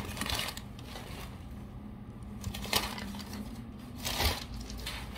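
Crumpled newspaper packing paper rustling and crinkling as it is pulled out of a cardboard box, in a few separate bursts.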